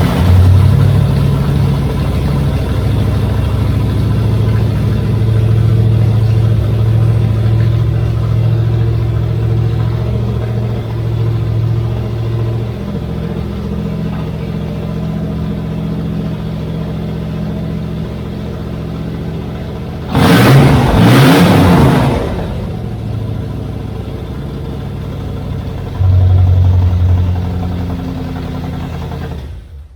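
Willys coupe's engine running at a fast idle just after starting, blipped once for a quick rev that rises and falls about two-thirds of the way through, then a shorter, smaller burst of throttle near the end.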